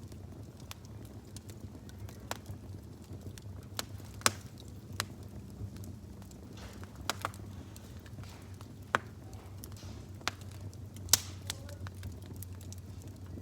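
Wood fire crackling: irregular sharp pops and snaps, the loudest about four seconds in and near the end, over a low steady hum.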